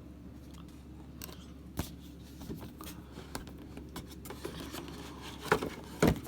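Board game contents being handled: scattered light clicks, taps and rustles of paper and cardboard, with a few sharper taps near the end.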